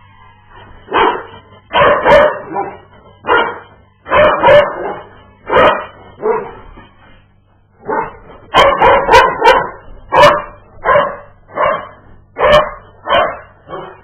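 A dog barking over and over in short loud barks, with a pause of about a second halfway through, then a quick run of barks.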